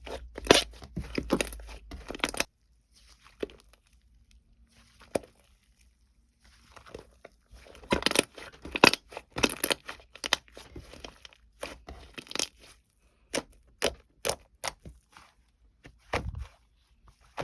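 Crinkling, tearing and crunching in irregular bursts, with a quiet pause of a few seconds early on, then a run of sharp crisp clicks.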